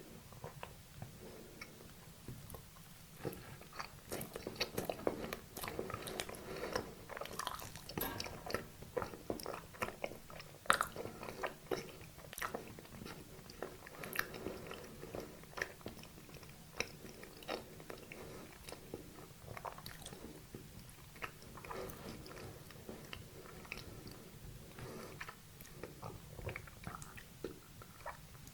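Close-miked eating of a sweet dessert: bites and chewing with many small sharp mouth clicks and crunches. The chewing is busiest in the first half, with one louder crunch near the middle.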